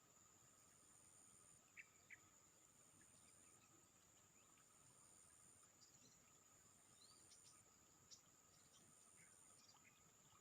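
Faint insect chorus: a steady high-pitched drone with a short, higher trill repeating about every second and a half. A few brief chirps are scattered through it, two sharper ones about two seconds in.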